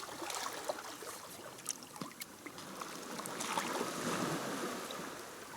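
Sea waves washing on the shore, one wave swelling and fading away in the middle, with scattered small sharp clicks over the wash.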